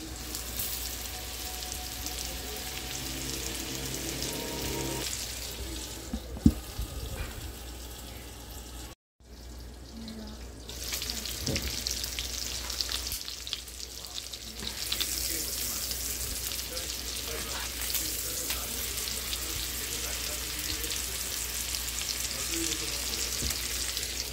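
Seasoned ribeye steaks sizzling as they fry in butter and avocado oil in a nonstick skillet, a steady crackling hiss. There is a sharp knock about six seconds in, and the sound cuts out briefly about nine seconds in.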